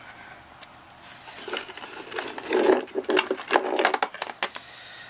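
Handling noise as two steel Sony F-97 dynamic microphones and their coiled cables are pulled out of a storage compartment: irregular rustling and clattering of cords and metal. It starts about a second and a half in and stops about a second before the end.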